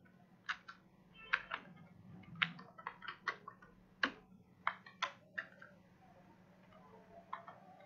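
Computer keyboard keys being typed: single irregular keystrokes, a dozen or so over about five seconds, then a last one a little later, over a faint steady hum.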